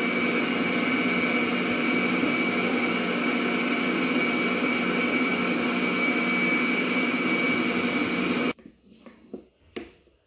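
Electric stand mixer running steadily, its wire whisk beating a strawberry ice-cream base. It is switched off abruptly about eight and a half seconds in, followed by a few light knocks.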